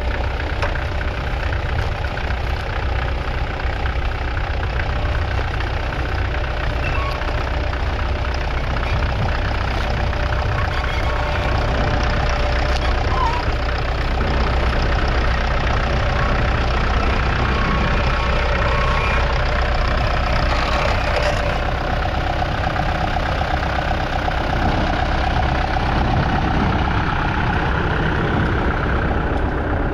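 A 1958 Massey Ferguson 65 MK1 tractor's 3.3-litre four-cylinder diesel engine running steadily with a low rumble, getting a little louder about twelve seconds in.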